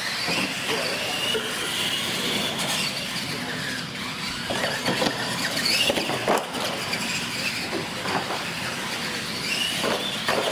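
Radio-controlled monster trucks racing: the motors whine and rise and fall in pitch, with a few sharp knocks as the trucks land off ramps about halfway through and again near the end.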